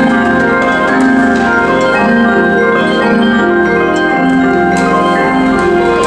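Indoor percussion ensemble playing: marimbas and other mallet percussion over sustained electronic keyboard chords, with a slightly wavering tone.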